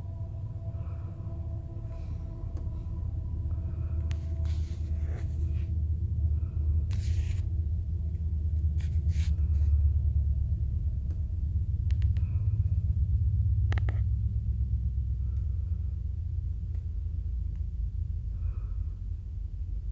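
Union Pacific freight train passing: a steady low rumble of wheels on rail, with a hum from the diesel locomotives that fades over the first dozen seconds. Heard from inside a vehicle, with a few short clicks and knocks over the rumble.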